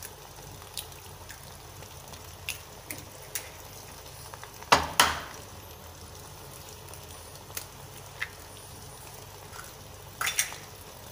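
Eggs being cracked open: a sharp double tap about five seconds in and another about ten seconds in, with faint clicks between.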